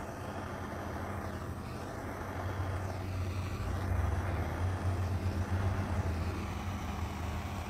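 Handheld torch flame running steadily over wet epoxy resin, a continuous rushing noise with a low rumble, a little louder from about two and a half seconds in.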